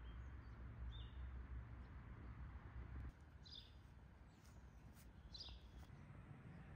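Faint outdoor birdsong: a few short high chirps, with two louder chirping calls in the second half, over a low rumble that drops away about three seconds in.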